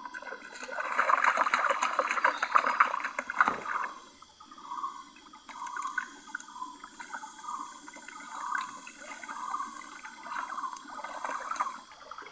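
Water sloshing and swirling in a gold pan as the last sediment is washed off, louder for the first few seconds, then softer, repeated swishes.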